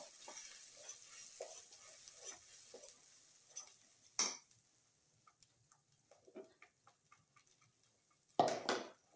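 A spatula scrapes and stirs masala paste frying in oil in a steel kadhai, with a sizzle, as it is sautéed until the oil separates. The stirring ends with a sharp knock on the pan about four seconds in, and a short louder clatter comes near the end.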